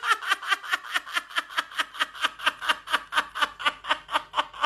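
A man laughing hard in a long, unbroken fit: rapid, even bursts of breathy laughter, about seven a second.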